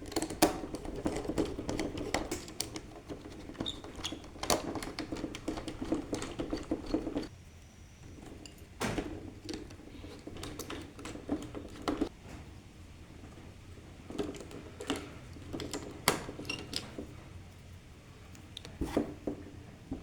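Irregular small clicks, taps and rattles of electrical wires and hand tools being handled while neutral wires are looped at a consumer unit. They are dense, with a rustle, for the first seven seconds, then sparser, single sharp knocks.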